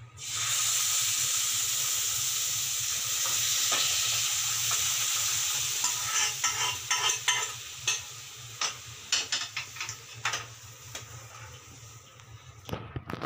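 Hot ghee tempering (tadka) of cumin, mustard seeds and dried red chillies sizzling as cooked sambar is poured into it: a sudden hiss that holds for about six seconds. It then dies down into crackling, with a ladle clicking against the pan as the sambar is stirred in.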